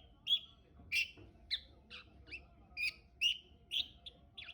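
Pet budgerigar giving a run of short, sharp chirps, about two a second, the chatter that the owner takes for a possible sign that it is about to start talking.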